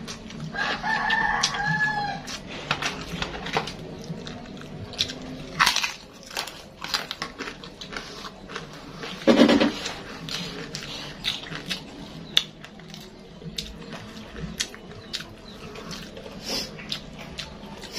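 A rooster crows once, about half a second in, over close sounds of eating with the hands: repeated small smacks and clicks of chewing and fingers working rice on a plate. There is one louder short sound about halfway through.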